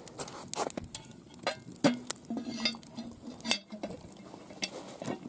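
Irregular sharp clicks and light metallic clinks around a steaming cast iron cauldron of stew over a wood fire, with a faint sizzle.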